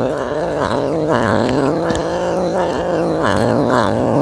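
Serval growling continuously while eating: one long, wavering growl that pulses roughly twice a second.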